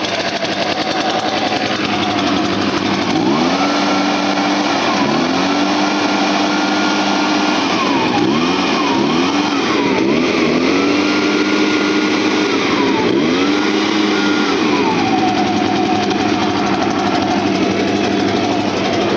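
Echo PB580T backpack leaf blower's two-stroke engine, just started from cold, running at idle and then revved up and held at high speed several times, with a few quick throttle blips in between. It drops back to a steady idle near the end.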